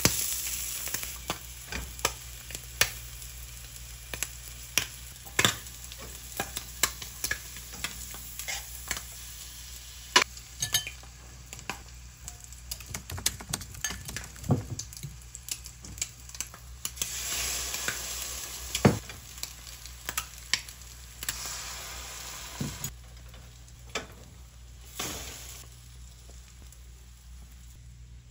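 Sliced ham and egg-dipped bread frying in oil in a stainless steel pan, a sizzle that swells a few times. Many sharp clicks of a fork against a bowl and tongs against the pan.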